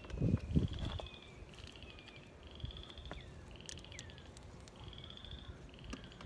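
Frogs calling: high, rapid trills repeated about once a second, with short falling whistles between them. A couple of dull knocks about half a second in, from handling the car's door trim panel.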